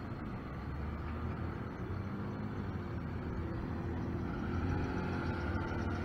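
Box truck's engine running as it pulls through an intersection and drives past. It grows louder as it nears, and its engine note comes through more clearly about four seconds in.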